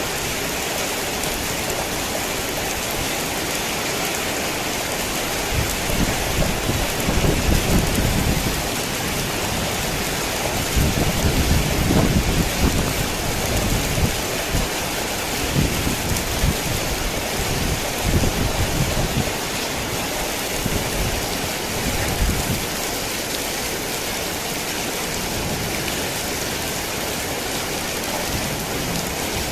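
Heavy rain falling steadily, with a long low rumble of thunder rolling through the middle that swells and fades over some fifteen seconds.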